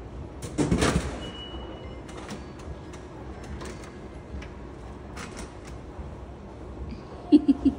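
A bottled drink dropping inside a Japanese drinks vending machine and landing in the pickup bin: a loud clunking rattle about half a second in. Near the end come three short, loud pitched blips.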